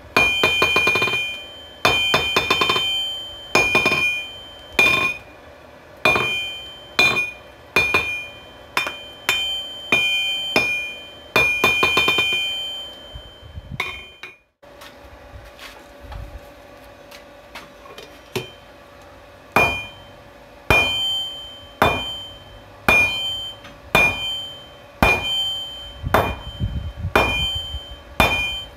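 Hammer blows on a 66 lb anvil, forging out a railroad spike, roughly one or two strikes a second. Each strike rings with a clear high tone. The strikes break off briefly about halfway, then carry on at a steadier pace.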